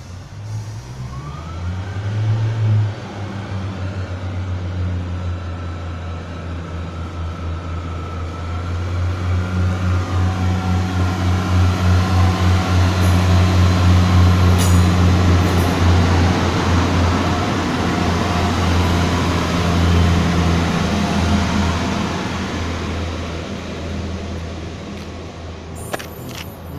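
Pacer diesel multiple unit pulling away from the platform. Its underfloor diesel engines rise in pitch in the first couple of seconds, then settle into a steady low drone that grows louder as the railbus passes close by about halfway through, and fades as it moves off.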